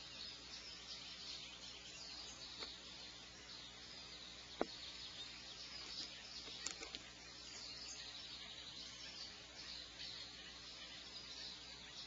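Faint, steady, high-pitched chirping chorus picked up by the nest-box microphone. One sharp knock sounds about four and a half seconds in, and a couple of lighter taps follow near seven seconds.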